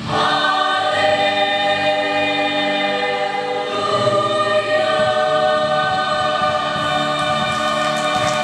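A mixed youth choir singing in parts, holding long sustained chords that change together every couple of seconds. The voices come in together sharply at the start, at the beginning of a new phrase.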